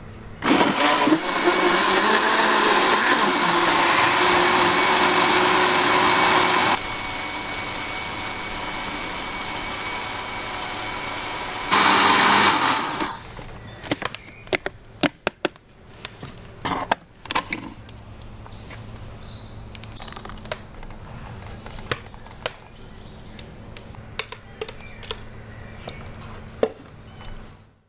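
Electric countertop blender puréeing tomatoes, peppers and herbs into a sauce. It starts about half a second in and runs steadily, drops to a lower, quieter speed for about five seconds, then gives a short loud burst and stops about thirteen seconds in. Light knocks and clicks follow.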